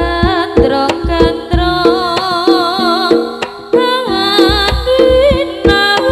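East Javanese jaranan music: kendang hand-drum strokes at a steady beat under steady ringing gamelan tones, with a wavering melody line on top.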